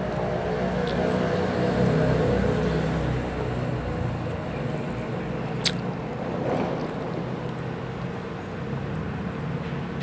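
Close-miked eating: biting into a chicken drumstick and chewing, with one sharp wet click a little past halfway. Under it a motor engine runs steadily, louder about two seconds in.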